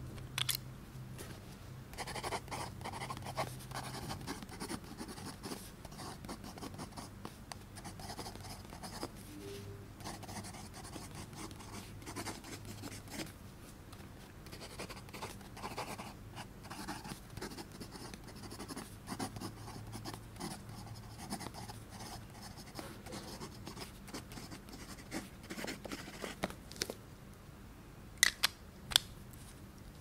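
Montblanc JFK fountain pen nib scratching across notebook paper as a line of text is written out in short strokes with small pauses. A few sharp clicks come near the start and again near the end as the pen is uncapped and capped.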